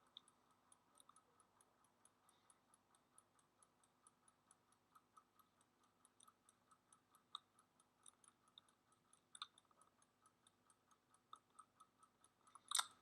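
Near silence with the faint, steady ticking of a clock, and a few louder clicks, the loudest near the end.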